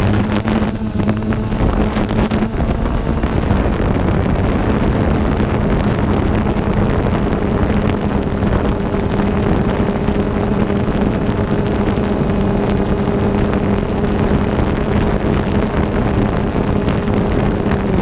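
DJI Phantom 2 quadcopter's motors and propellers humming steadily as it flies, recorded by the GoPro it carries, with wind rushing over the microphone.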